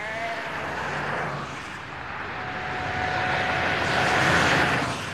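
Highway traffic: a passing vehicle's noise swells to its loudest about four seconds in, then eases off near the end.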